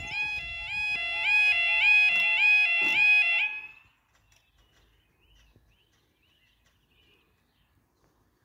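Level crossing audible warning alarm sounding its repeating, rising two-step yodel tone while the barriers lower. It cuts off suddenly a little under four seconds in, once the barriers are down, leaving faint bird chirps.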